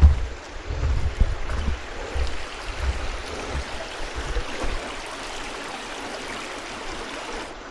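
Steady rush of water, with wind buffeting the microphone in gusts over the first few seconds before the sound settles into an even hiss.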